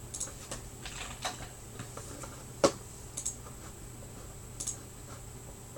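Scattered light clicks and taps, with one sharper, louder click about two and a half seconds in.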